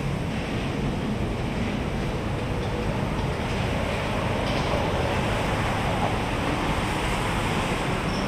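Steady outdoor background noise with no distinct events.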